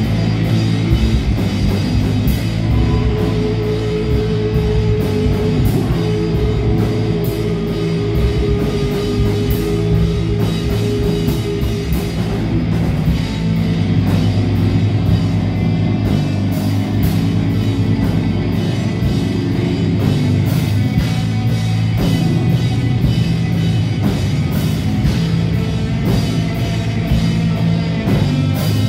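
Live rock band playing an instrumental passage: electric guitars, bass guitar and drums with steady cymbal hits. A long note is held for several seconds near the start.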